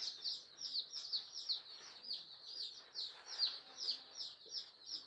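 Chicks of native (desi) chickens peeping: a continuous run of short, high, falling peeps, several a second.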